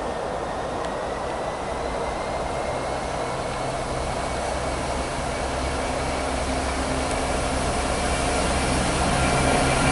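DB Cargo Class 66 diesel-electric locomotive approaching, its two-stroke V12 engine running with a steady low drone over the rush of the train on the rails. The sound grows steadily louder as it nears, and the engine note comes through clearly about three seconds in.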